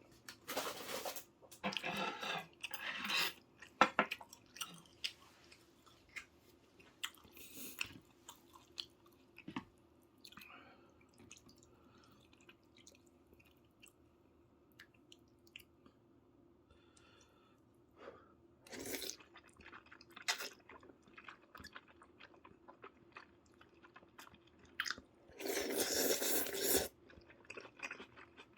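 A person chewing and biting into soy-braised chicken close to the microphone, in bursts with a quieter pause midway. Near the end comes a louder, noisy sound about a second long.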